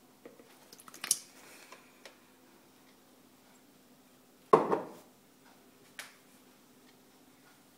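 Kitchen bowls being handled as raw eggs are tipped into a plastic mixing bowl: a few light clicks in the first two seconds, then one loud knock with a short ring about halfway through, and a lighter tap a second and a half later.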